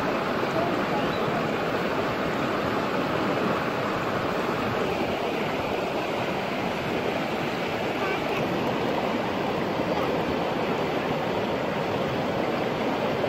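Running water of a stream, a steady even rush with no breaks.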